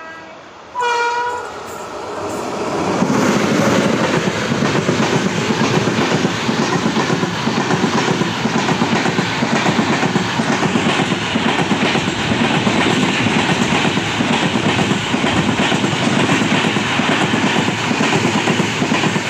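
A passenger train hauled by an electric locomotive passing close by on the next track, heard from the open door of a moving train. A short horn blast sounds about a second in, then the loud, steady rush and clatter of the passing coaches' wheels lasts until near the end, when the level drops as the train clears.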